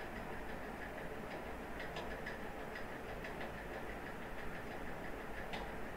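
Computer keyboard keys clicking irregularly as text is typed, over a steady background hum and hiss.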